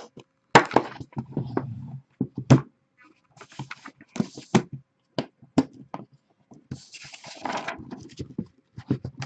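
Aluminium card-box briefcase being handled, with a series of sharp clicks and knocks as its metal latches are worked, followed by paper rustling about seven seconds in.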